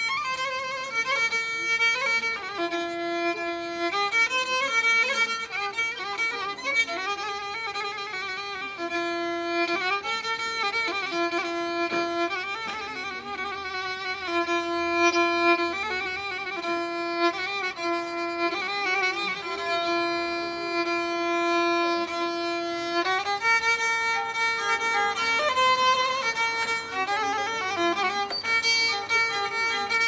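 Solo violin improvising in a Turkish folk music style: long held notes with vibrato alternating with quicker ornamented runs.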